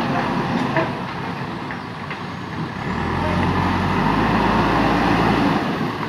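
Diesel engine of a JCB backhoe loader running as the machine drives with a loaded front bucket; the engine note deepens and gets louder about halfway through, then eases just before the end.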